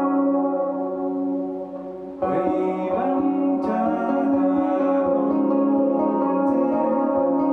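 A long-necked stringed instrument played through effects pedals, its notes sustaining and ringing. About two seconds in a fresh stroke sets off new notes, and a man sings over them.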